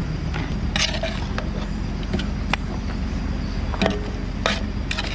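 A steady low motor hum runs throughout, with about seven scattered sharp clicks and knocks; about a second in, one of them is a longer rustle.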